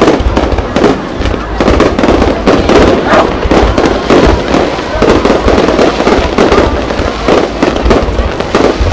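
Aerial fireworks shells bursting in a dense, continuous barrage: loud booms with crackling and many sharp bangs close together, no pause throughout.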